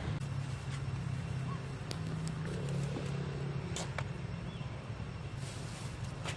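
A steady low engine hum, with a few short clicks.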